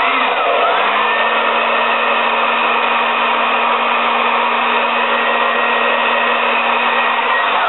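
Hand-held hair dryer running steadily, blowing on freshly applied bonding glue on a weave track to dry it. Its pitch wavers briefly in the first second, and it cuts off at the very end.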